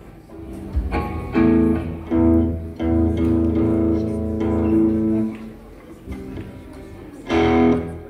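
Amplified electric guitars and bass guitar of a rock band playing chords: two short stabs, then one long held chord, then a last stab near the end.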